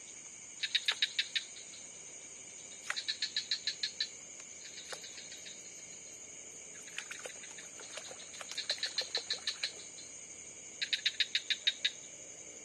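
Crickets trilling steadily at a high pitch. Every couple of seconds this is broken by a quick run of about eight to ten sharp clicks, each run lasting about a second; this is the strange night sound, from an animal that is not identified.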